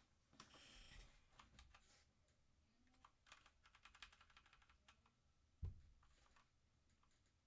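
Faint typing on a Motospeed CK61 60% mechanical keyboard: keys clicking in short runs, quickest a little before the middle, with one low thump a little past the middle.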